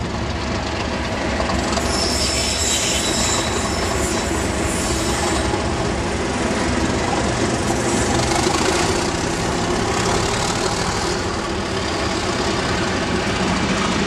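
Two Class 37 diesel-electric locomotives, English Electric V12 engines under power, running past with a loaded scrap train, with the wagon wheels rolling over the rails. A high whistling tone sounds for a few seconds about two seconds in.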